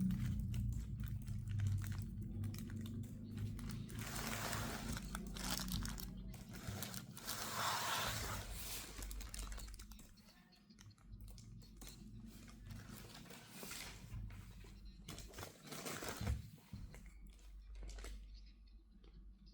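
Shoe packaging wrapping crinkling and rustling as it is handled, in irregular bursts, louder in the first half and fainter after about ten seconds.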